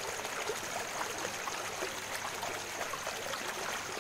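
Muddy rain runoff flowing steadily through a ditch, a continuous rushing hiss with many small splashes.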